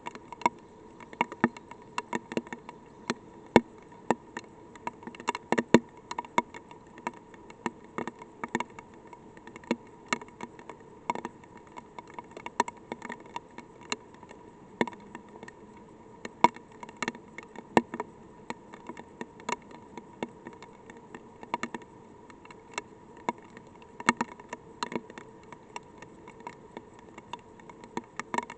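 Light rain: scattered raindrops ticking sharply and irregularly on the probe near the microphone, a few each second, over a steady faint hum.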